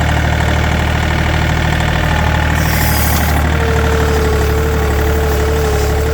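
Tractor engine running steadily. A steady whine joins about halfway through.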